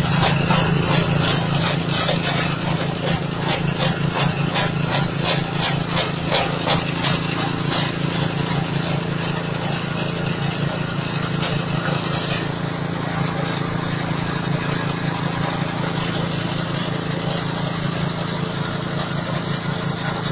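Engine-driven straw chopper-grinder running steadily with a low hum. A rapid, rasping crackle of material going through the cutters fills the first several seconds, then it runs smoother.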